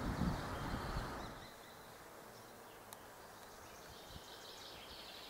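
Outdoor ambience: rough wind noise on the microphone for the first second or so, then quiet with faint birdsong.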